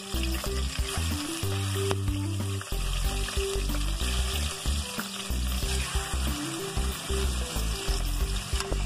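Raw chicken pieces sizzling and frying as they are laid into hot oil in an aluminium pot, with some stirring. Background music with a stepping bass line plays underneath.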